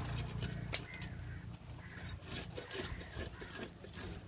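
A single sharp knock about three-quarters of a second in, followed by scattered quieter taps and clicks.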